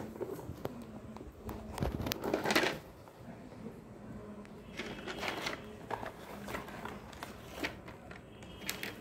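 A hexagonal plastic art-set case being handled and opened: its hinged trays and the pencils and pens in them click, knock and rattle in short irregular bursts, loudest about two seconds in.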